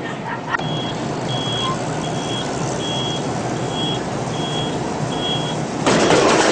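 Mobility scooter's reversing beeper sounding a high-pitched beep about every three-quarters of a second, seven times, over a steady hum. A loud burst of noise comes near the end.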